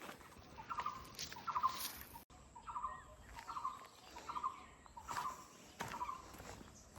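A bird calling over and over, about seven short calls a bit less than a second apart, each a quick run of notes. Scattered sharp clicks sound in between.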